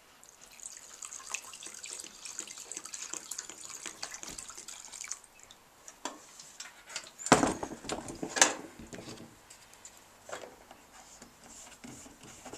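Liquid trickling into a tin, likely paint thinners being poured, for about five seconds, then a few sharp metallic knocks as paint tins and lids are handled.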